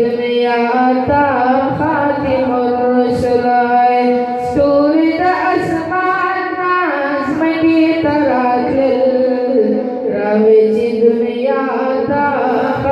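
A young man's voice chanting an Islamic devotional recitation unaccompanied into a microphone, in long drawn-out melodic phrases with short breaks between lines.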